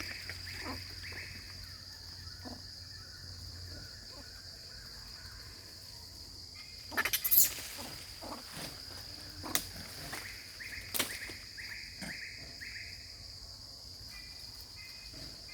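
Steady high-pitched insect drone, with runs of short falling chirps near the start and again about two-thirds through, and a few sharp clicks, the loudest about seven seconds in.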